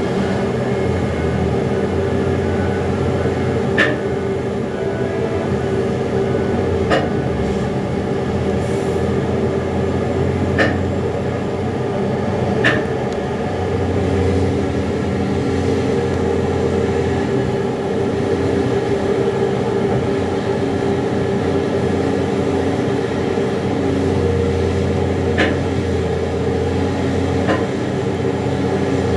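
Liebherr 9250 mining excavator's diesel engine and hydraulics running with a steady heavy drone. About six short sharp knocks come through it, spread out across the stretch.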